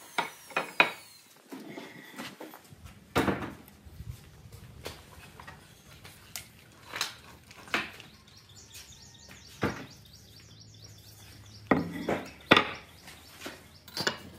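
Wooden boards and chair parts being set down and knocked against a wooden workbench: a scattering of separate hard wooden knocks. A bird chirps rapidly in the background for about three seconds in the middle.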